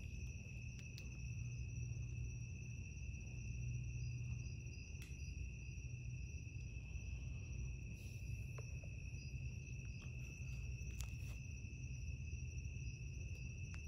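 Crickets trilling in a steady, unbroken chorus at a high pitch, over a low rumble, with a few faint ticks.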